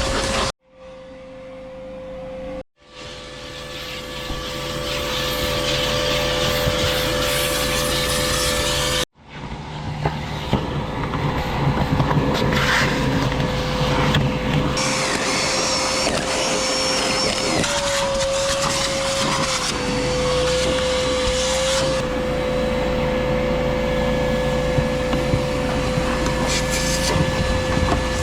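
A motor-driven machine running steadily with a constant whine. The sound cuts out three times in the first nine seconds and builds back up each time, and the whine dips in pitch briefly about two-thirds of the way through.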